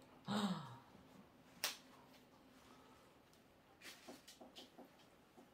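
A brief vocal sound from a person, falling in pitch, then a single sharp click about a second later and a few faint taps near the end.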